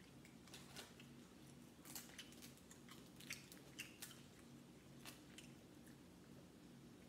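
Faint clicks and crackles of boiled shellfish shell being cracked and peeled by hand, with soft chewing, over a steady low hum.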